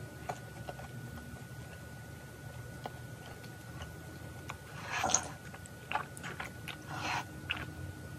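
Mouth sounds of eating and drinking: faint chewing at first, then from about five seconds in a run of louder mouth noises and swallows.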